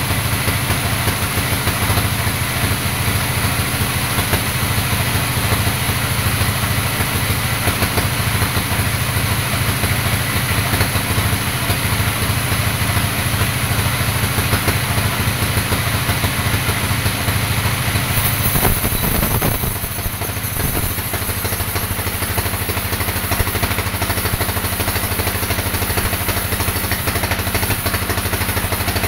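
Vertical band sawmill running and cutting through a large teak log, a loud, steady machine drone with a fast even pulsing. About two-thirds of the way through the sound changes, settling into a steadier low hum.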